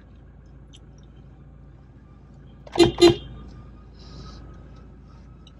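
Two quick toots of a vehicle horn, about a quarter second apart, over a low steady hum.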